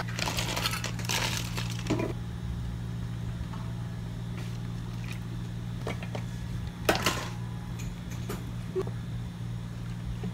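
Ice cubes clattering into plastic cups in the first two seconds, followed by a steady low electrical hum with a few light knocks and clicks, the sharpest about seven seconds in.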